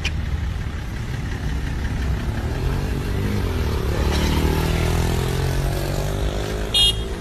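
Car engine running with road noise, rising in pitch as it speeds up around the middle. A short high beep sounds just before the end.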